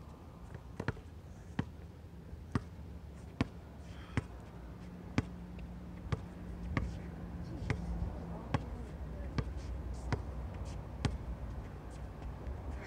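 Basketball dribbled on a hard outdoor court, a sharp bounce repeating at a little more than one a second.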